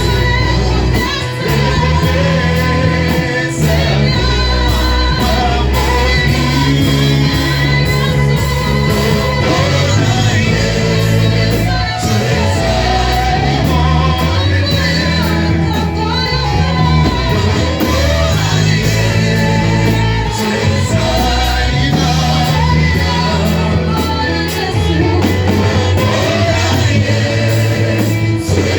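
Church gospel music: voices singing together over a band with a strong, sustained bass line.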